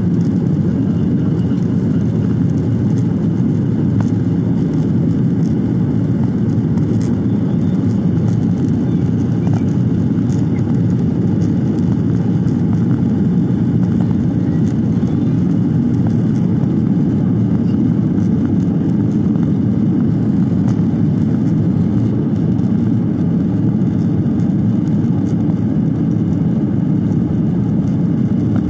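Steady jet-engine and airflow noise heard inside an airliner cabin as the plane lifts off and climbs, an even, unchanging roar.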